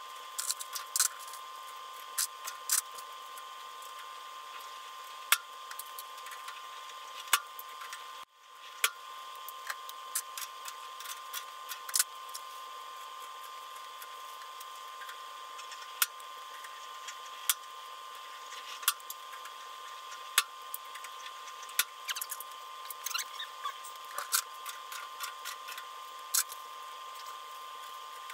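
Irregular sharp clicks and light metallic taps of hand work on the aluminium RV-10 horizontal stabilizer spar and its clecos, over a steady background hum.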